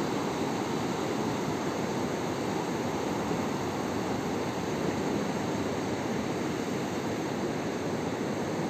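Steady wash of sea surf on a sandy beach, an even rushing noise with no distinct sounds standing out.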